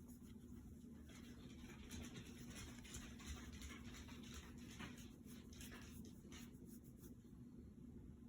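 Near silence: a low steady hum with faint scratching, rustling and light clicks scattered throughout.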